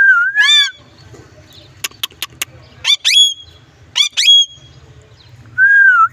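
Indian ringneck parakeet (rose-ringed parakeet) whistling and calling. A held whistle opens and closes it, with short rising calls in between and three sharp clicks around the middle.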